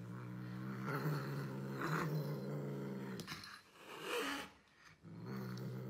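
Domestic cat growling low and steady with a strip of food in its mouth, guarding it. The growl breaks off about three seconds in, with a brief sharper sound in the pause, and starts again about two seconds later.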